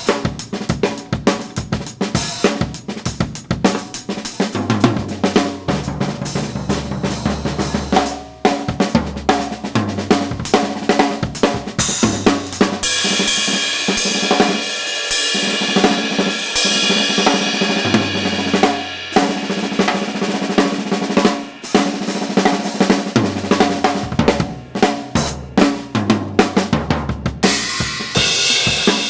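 Full drum kit played fast and busy: kick drum, snare, hi-hat and crashing cymbals, with a cymbal wash in the middle stretch. Held low notes that step in pitch every second or two run underneath.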